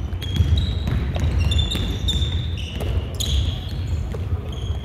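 Basketball play on an indoor court: the ball bouncing on the floor, with several short, high squeaks of sneakers on the hardwood, over a steady low rumble of the hall.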